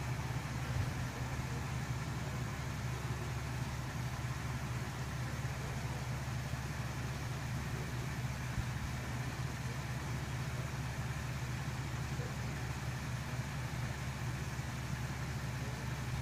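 Vehicle engine idling steadily, a low even hum.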